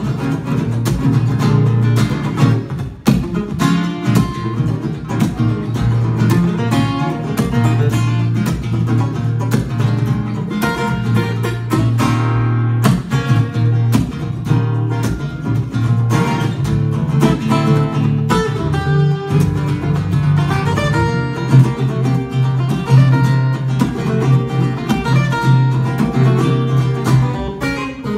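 Two acoustic guitars playing a lively duet, with a low bass line running under chords and many sharp percussive strikes.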